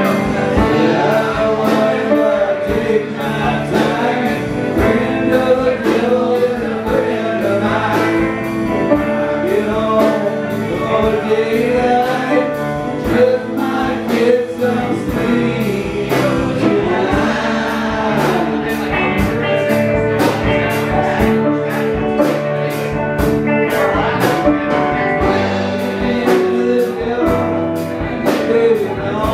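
Live band playing with electric guitars and male singing, over a steady beat.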